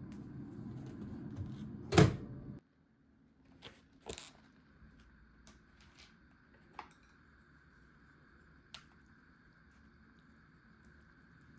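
A steady low hum, with a sharp loud click about two seconds in; the hum cuts off abruptly just after it. Then it is quiet, with a few light clicks and taps.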